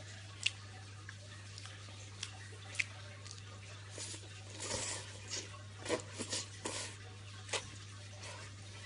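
Irregular light clicks and taps, with a few short splashy noises clustered about halfway through, over a steady low hum.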